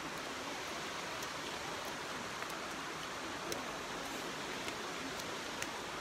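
Steady rush of a waterfall sliding down a sloping rock face into a pool, an even hiss of water, with a few faint clicks.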